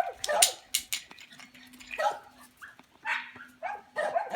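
Xoloitzcuintli puppies barking and yipping in short, high-pitched bursts while playing, about five of them, the loudest right at the start.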